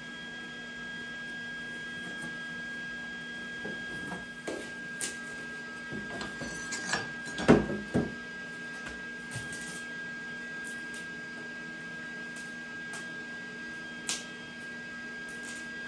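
Steady electrical hum with a high whine underneath, with a cluster of knocks and clatters from metal parts being handled about a third to halfway through, the loudest near the middle, and one sharp click near the end.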